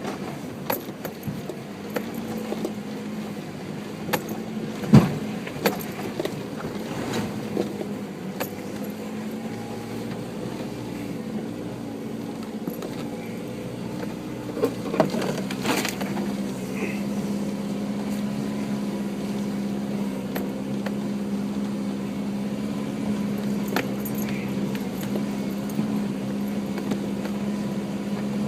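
Four-wheel-drive engine running at low revs on a rough track, with scattered sharp knocks and rattles; the loudest knock comes about five seconds in, and the engine note holds steadier and stronger in the second half.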